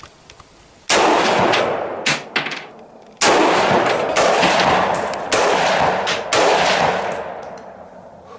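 A string of gunshots, roughly one to two seconds apart, each with a long echoing tail. The loudest come about a second in and about three seconds in.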